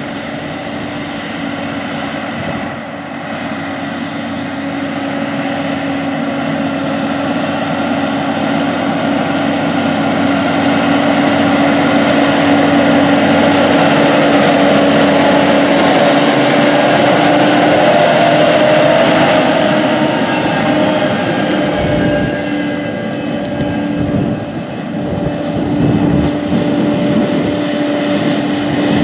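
Deutz-Fahr 9340 TTV tractor's six-cylinder diesel engine running under load while pulling a 20-foot Maschio Gaspardo UFO high-speed disc through the soil. It is a steady engine drone that grows louder as the tractor approaches, is loudest around the middle, and dips a little as it passes.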